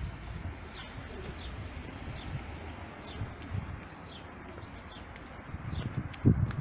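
Small birds chirping over and over in short, high, falling notes, about two a second, over a steady low rumble. A louder dull thump comes near the end.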